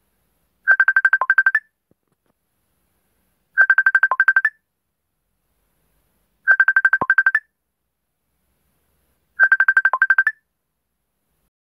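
Facebook Messenger incoming-call ringtone: a burst of about ten rapid chiming notes lasting under a second, repeating about every three seconds, four times.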